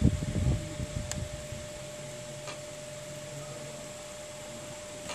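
Steady background hum with a thin, steady whining tone, like a small fan running. A few soft low bumps in the first second and a single faint click about a second in.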